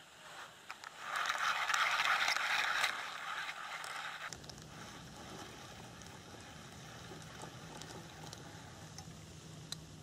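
A rustling hiss lasting about two seconds, then quieter outdoor ambience with a low steady hum and a single click near the end.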